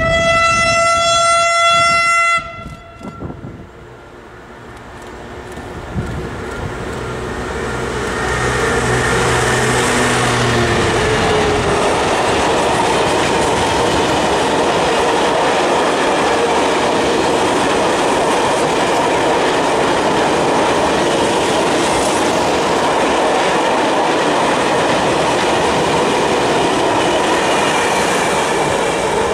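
Class 66 diesel locomotive's horn giving a long single-note warning blast that cuts off about two seconds in. The locomotive's diesel engine then comes closer, and from about eight seconds a long train of tank wagons rolls past with a steady loud rush and clatter of wheels on rails.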